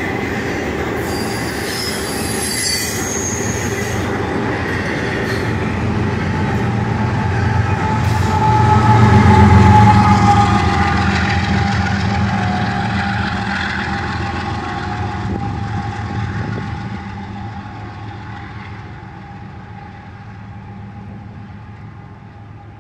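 Freight train of well cars carrying truck trailers rolling past, with a steady wheel squeal. About ten seconds in, the CSX rear-end DPU diesel locomotive passes, its engine the loudest part. The whole train then fades as it draws away.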